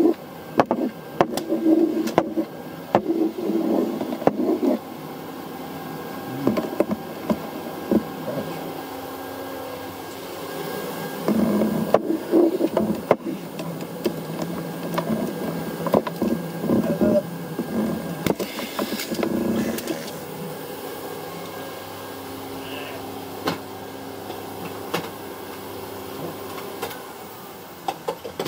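Vacuum cleaner running with a steady hum, its hose nozzle knocking and scraping against a shelf and cables as it sucks up dirt. The motor dies away near the end.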